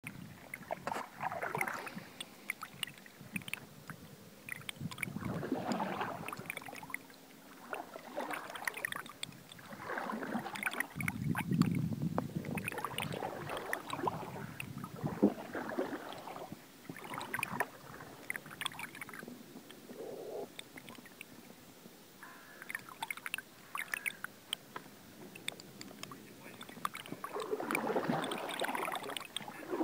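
Water sloshing and splashing around a canoe, in irregular swells about every two seconds, with small knocks and clicks.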